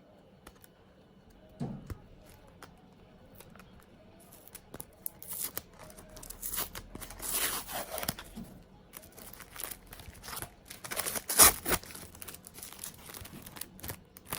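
Packaging being torn open and crinkled by hand: irregular rustling and tearing that starts about four seconds in, with the loudest tears around seven and eleven seconds in.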